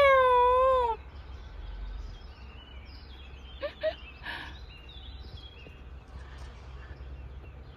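A cat meowing: one long, wavering meow in the first second. After it come a few faint short chirps about four seconds in, over a low steady background rumble.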